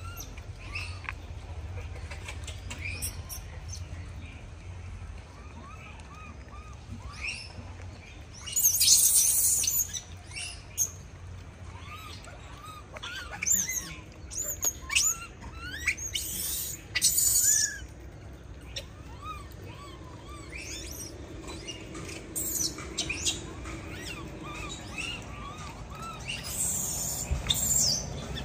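Small birds chirping, short arching calls repeated throughout over a steady low rumble. Several louder harsh noisy bursts break in, the loudest about a third of the way in and others in the middle and near the end.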